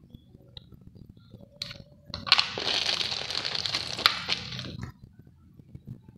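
Hot soldering iron melting through the plastic visor shell to enlarge a bolt hole: a crackling, hissing burst lasting about two and a half seconds, starting about two seconds in, with sharp cracks inside it.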